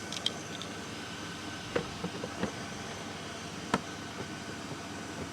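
Small portable air compressor in a jump-starter pack running with a steady hum. Several sharp clicks and knocks are heard, the loudest a little under four seconds in.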